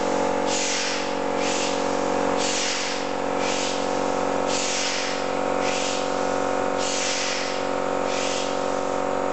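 Vertical Tangye steam engine running slowly on compressed air, its exhaust hissing out in puffs about once a second, alternating strong and weaker, over a steady hum.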